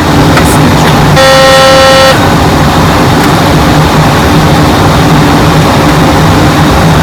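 Loud, steady noise inside an airliner's cockpit. About a second in, a single steady electronic tone sounds for about a second.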